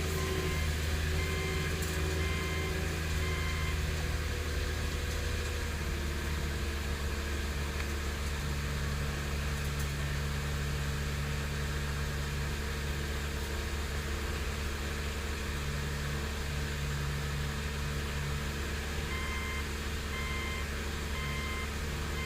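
2006 Subaru Tribeca's 3.0 L flat-six idling steadily just after starting, with a new spark plug boot on the misfiring cylinder 1; it runs pretty smooth, with a slight roughness. A car's warning chime beeps a few times about a second in and again near the end.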